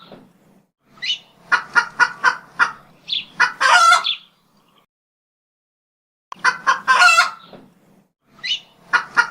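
Chicken clucking in runs of short, quick clucks, each run ending in a longer drawn-out call. There is a pause of about a second and a half midway.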